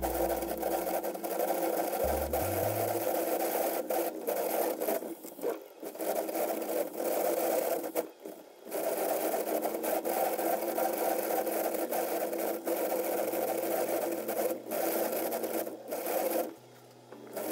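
Cardboard belt being driven by an electric motor's roller beneath it, a steady, crazy loud rattling scrape that briefly drops out a few times.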